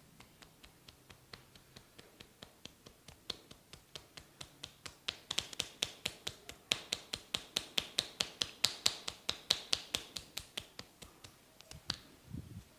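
Tok sen massage: a wooden mallet tapping a wooden wedge against the body, a steady run of sharp clicks about four a second that gets faster and louder midway, then eases off. A duller low thud near the end.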